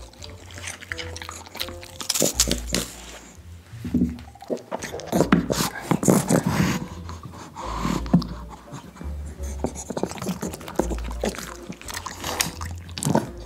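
Dogs chewing crisp bok choy stalks close to the microphones, a run of wet crunches and clicks, over background music with a pulsing bass.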